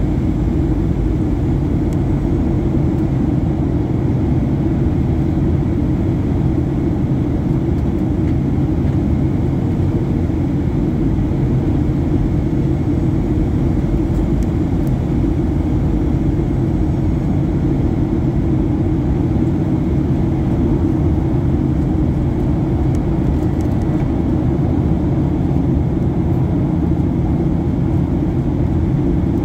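Steady low drone of a jet airliner in flight, heard inside the cabin: turbofan engine and rushing air, with a few faint steady hums.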